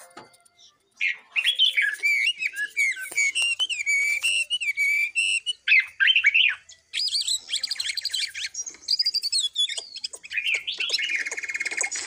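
Songbird singing loud, varied whistled phrases that slide up and down in pitch. After a brief break near the middle it switches to rapid repeated notes and, near the end, a steady fast trill.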